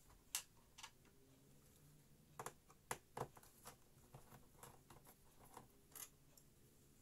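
Faint, scattered small clicks and taps of a screwdriver and screws being worked on the main board of an all-in-one PC, a dozen or so irregular ticks with a cluster about two and a half to three seconds in.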